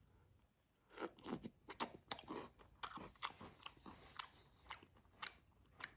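A person chewing a mouthful of crunchy KitKat cereal: faint, irregular crunches starting about a second in.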